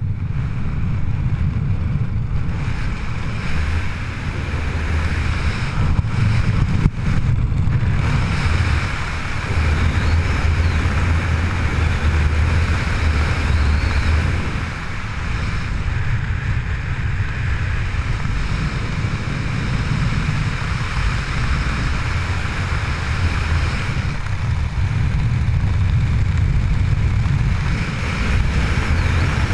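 Steady, loud rush of wind buffeting the microphone, heavy in low rumble.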